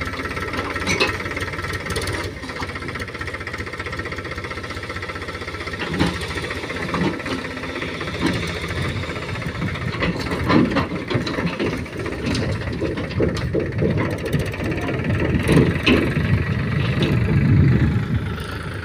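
Powertrac 439 Plus tractor's diesel engine running steadily as the tractor drives slowly forward, tipping soil out of its raised trailer. Intermittent clanks sound over the engine, and it gets louder near the end.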